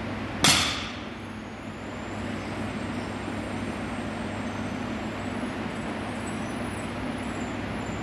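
A loaded barbell with rubber-coated plates touching down on the gym floor at the end of a deadlift: one sharp thud about half a second in. A steady background hum runs under it.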